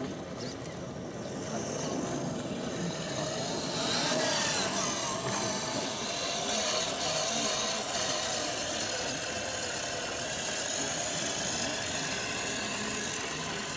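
Radio-controlled model truck driving on the trial course, its drive giving a steady whine that wavers in pitch with the throttle and grows louder about four seconds in.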